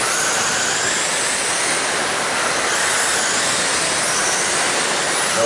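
Pack of electric RC sprint cars with 13.5-turn brushless motors racing: high motor whines that rise and fall in pitch as the cars accelerate and lift, over a steady hiss.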